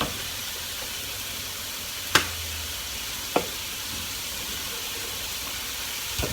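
Sliced chicken thigh fillets frying in a lightly oiled pan, a steady sizzle, with two sharp knocks against the pan about two seconds and three and a half seconds in.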